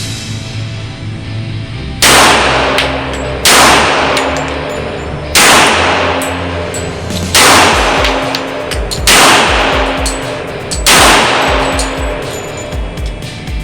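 Six single pistol shots from a Rock Island Armory Rock Ultra FS 1911 in .45 ACP, fired at an unhurried pace about one and a half to two seconds apart, each ringing out for about a second. Background music plays underneath.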